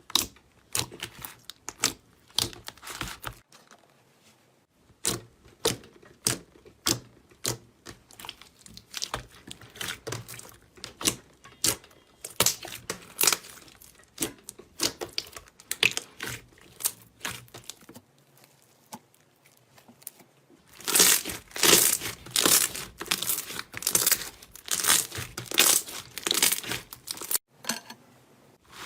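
Close, crisp crackling and crunching of a brittle material being cut or crushed: many quick, irregular sharp snaps, which grow louder and denser about two-thirds of the way through.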